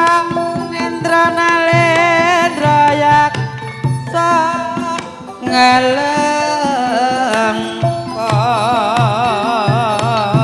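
Javanese gamelan playing a lancaran, with a sinden (female singer) singing over the ensemble and a kendhang hand drum keeping a steady low beat. Near the end the voice holds a long note with a wide vibrato.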